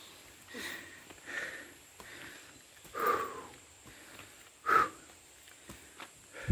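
A person breathing hard from the effort of climbing a long flight of steep concrete steps: a few heavy, separate puffs of breath, the loudest two near the middle and about five seconds in.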